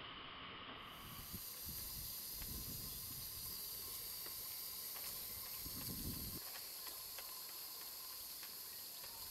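Steam hissing steadily from a small brass fitting on a copper model boiler, starting about a second in, with faint light clicks.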